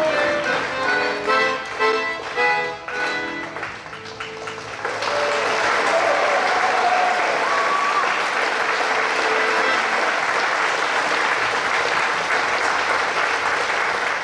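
An accordion tune ends in the first few seconds, then the audience claps steadily, with a few voices calling out early in the applause.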